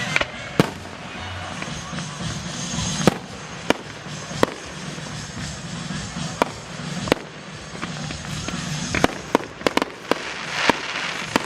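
Fireworks going off: a string of sharp bangs a second or so apart, coming faster in a quick run of bursts near the end.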